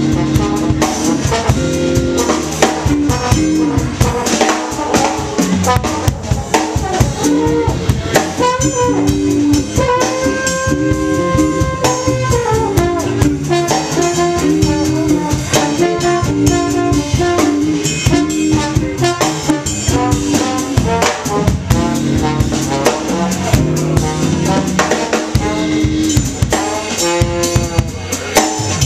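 Small jazz band playing live in a steady funky groove: drum kit with cymbals, electric bass, electric guitar and keyboards, with a few long held notes about a third of the way in.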